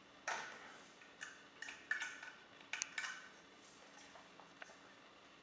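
Light clicks, taps and small rattles of a vacuum cleaner motor and its wire terminals being handled, several in quick succession in the first three seconds and then only faint ones.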